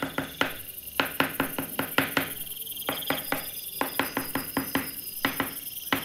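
Background music: quick clicking percussion in short runs, with a short high tone that comes back every few seconds.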